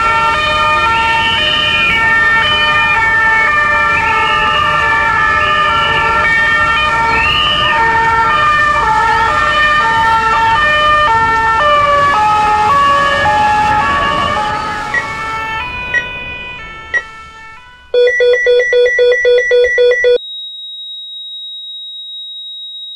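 Sirens wailing, rising and falling over several steady, held tones, fading out about 15 s in. Then comes a quick run of electronic beeps, about three or four a second for two seconds, followed by a single steady high-pitched electronic tone.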